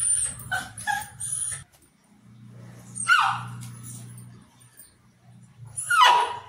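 White Pomeranian yelping and whining. There is a quick run of short yelps in the first second and a half, then single yelps that drop in pitch about three seconds in and again near the end.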